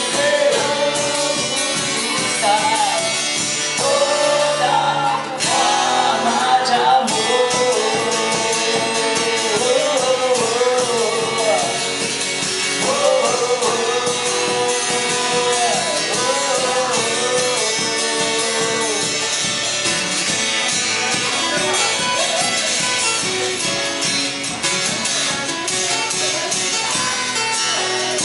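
Music: a singing voice carrying a melody over strummed guitar and percussion, in the style of Brazilian bar music.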